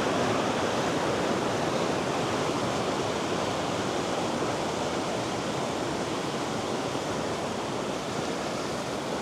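River in flood after rain, rushing steadily through rocky rapids, growing a little quieter toward the end.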